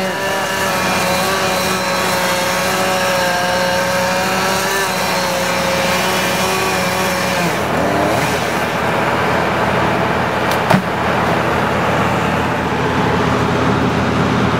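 Engine running steadily, its pitch shifting about eight seconds in, with a single sharp knock near eleven seconds in.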